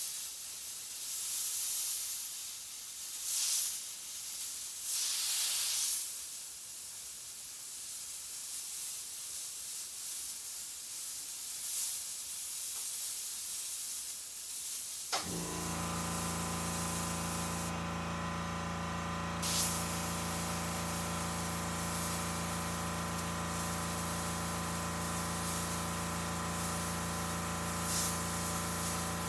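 Airbrush spraying paint, a steady hiss of air with a few surges in the first seconds and a short break about 18 seconds in. About 15 seconds in, a machine starts up and hums steadily underneath the hiss.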